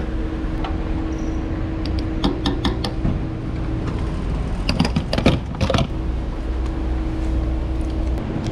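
Petrol station fuel dispenser humming steadily while a motorcycle tank is filled. Around five seconds in comes a short run of knocks and clunks as the fuel nozzle is handled and hung back on the pump.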